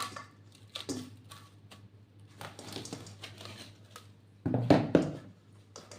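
Kitchen handling noises as a bowl of bread dough is covered: light rustling and small knocks, with a louder rustle and thump about four and a half seconds in.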